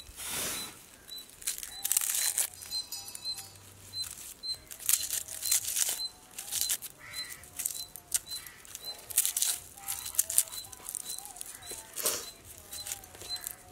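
Papery garlic skin crackling and rustling in quick irregular bursts as a garlic bulb is broken into cloves and peeled by hand.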